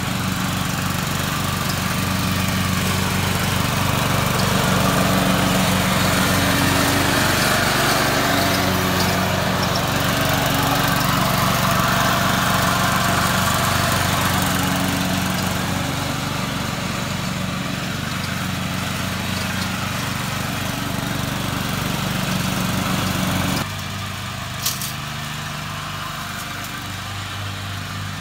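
Riding lawn mower's engine running steadily as the mower drives across the grass, with an even engine note throughout. About 23 seconds in, the sound drops suddenly and is quieter and farther off for the last few seconds.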